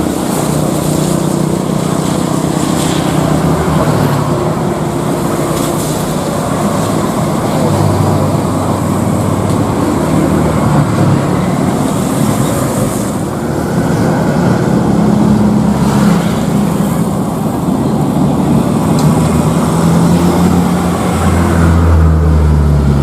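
Engines running steadily close by, a continuous loud rumble with low engine tones that shift in pitch now and then.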